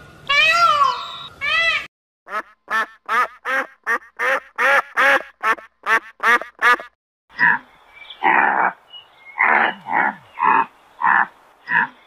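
Ducks quacking: a fast run of short quacks, about three a second, followed by a slower run of rougher, noisier calls. Two arched, wailing calls come first, in the opening two seconds.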